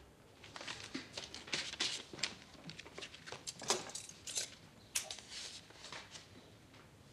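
Sheets of typewritten paper rustling as they are handled and gathered into a stack, in irregular crisp rustles with a few sharper taps.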